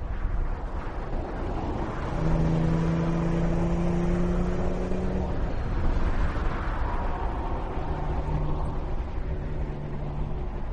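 BMW M1's straight-six engine running as the car drives by at speed, over road and wind noise. About two seconds in the engine note climbs slowly as it pulls, and later a lower, steadier note carries on.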